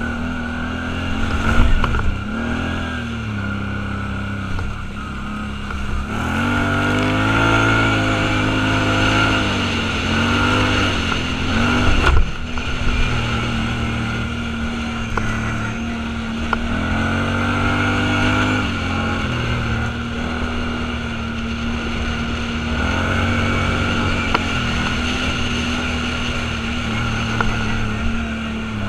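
Off-road vehicle's engine running under way, its pitch holding steady and then rising and falling in several spells as it speeds up and slows, with a sharp knock about twelve seconds in.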